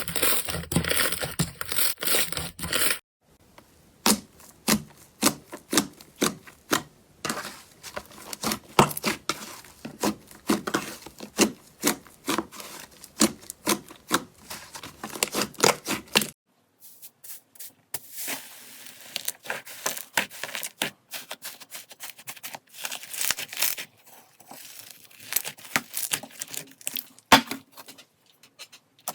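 Slime being squeezed and pulled by hand, giving a dense run of sharp crackles and pops, in three separate clips with abrupt cuts about 3 and 16 seconds in.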